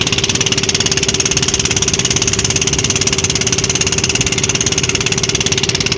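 An engine running steadily at idle, with a fast, even pulsing beat.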